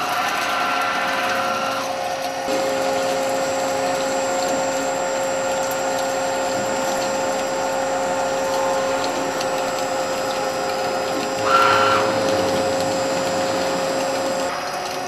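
Solid Corporation ABP-1016GKII two-spindle drilling machine running with a steady whine of several tones. The mix of tones shifts a couple of seconds in, and it briefly gets louder about eleven seconds in.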